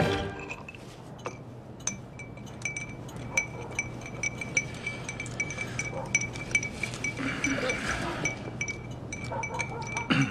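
Teaspoon stirring in a drinking glass, clinking against the glass over and over at the same pitch, several clinks a second.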